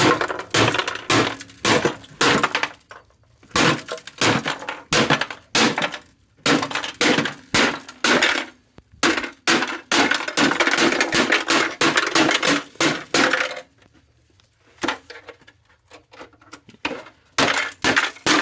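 Repeated hard blows and cracking as a speaker cabinet is smashed open from the back, with a longer stretch of crunching and breaking partway through and a short lull near the end.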